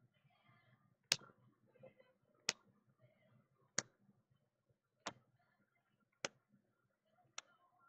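2020 Topps Series 2 baseball cards being flipped one at a time through a stack, each card snapping with a sharp click. Six clicks come evenly, a little over a second apart.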